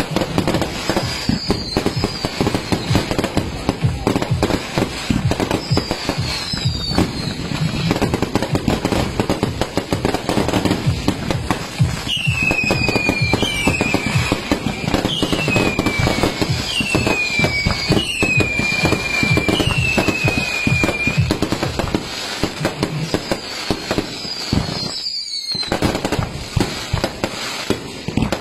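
Fireworks going off in dense, continuous crackling and popping, with falling whistles cutting through, several in a row about halfway through.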